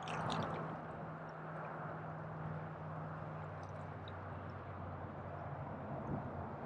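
Small waves lapping against shoreline rocks, under a steady low hum.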